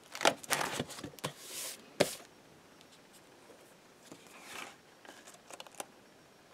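Pages of an old ring-bound book being turned by hand: paper rustling and swishing, with a sharp click about two seconds in and a few light ticks near the end.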